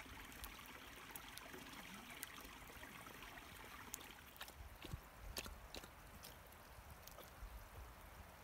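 Small stream trickling through a shallow channel among dead reeds: faint and steady, with a few sharp plinks about four to six seconds in.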